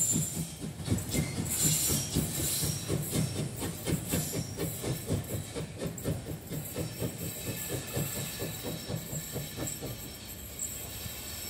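Steam locomotive pulling away, its exhaust beating out a fast, even chuff that fades as it draws off into the distance.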